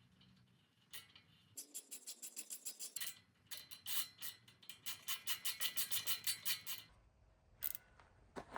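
Ratchet wrench clicking in quick, even runs of about seven clicks a second: a short run, then a longer one, followed by a few single clicks near the end.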